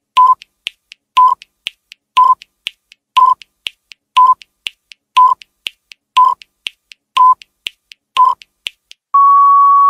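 Countdown timer sound effect: a short beep with a click once a second, nine times, with lighter ticks between the beeps, then one long steady beep near the end as the countdown runs out.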